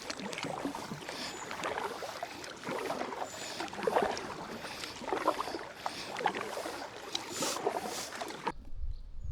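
Kayak paddles dipping and splashing in river water, stroke after stroke at an uneven rhythm. Near the end the sound cuts off abruptly to quiet.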